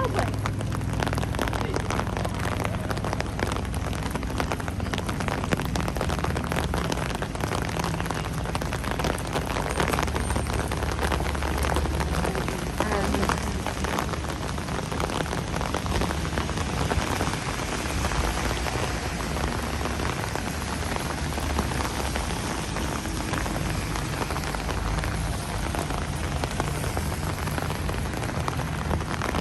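Steady rain falling on a city street, a dense patter of small drop ticks over a low, steady rumble.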